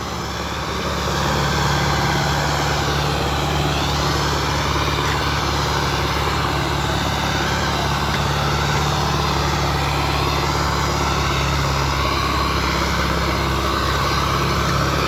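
Sonalika DI-55 DLX tractor's diesel engine running steadily under load as it pulls a 20-disc harrow through ploughed soil, growing louder over the first second or two and then holding even.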